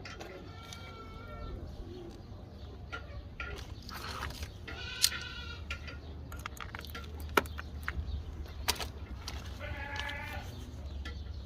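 Goats bleating, three calls spaced about five seconds apart, with a few sharp clicks or knocks between them over a steady low rumble.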